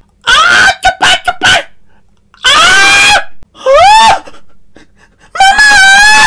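A man's loud, high-pitched exaggerated cries of surprise: a few short clipped shouts near the start, then two long held cries and one cry that swoops upward in pitch.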